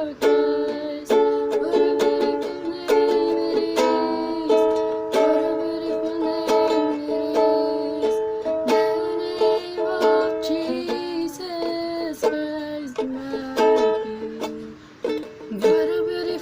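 Greg Bennett ukulele being strummed, about one strum a second, moving through a series of chords.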